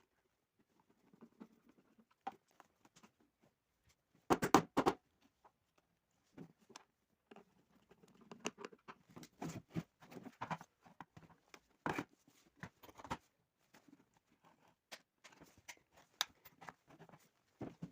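Scattered clicks, taps and knocks from a kettle and small parts being handled during repair, with a quick run of three or four louder knocks about four seconds in.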